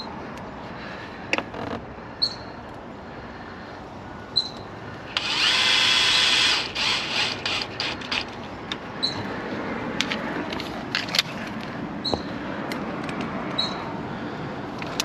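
Cordless drill/driver runs once for about a second and a half, driving in a small screw on an RC truck. Sharp clicks and clatter of the drill and parts being handled come before and after it.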